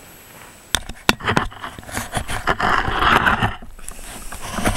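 Camera handling noise: a couple of knocks about a second in, then rubbing and rustling on the microphone as a hand grips and moves the camera.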